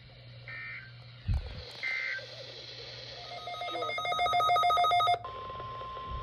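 NOAA Weather Radio SAME digital data bursts: two short squawks about a second and a half apart, the end-of-message code, with a low thump between them. A loud buzzing electronic tone follows for about two seconds. About five seconds in it gives way to the steady 1050 Hz weather radio warning alarm tone.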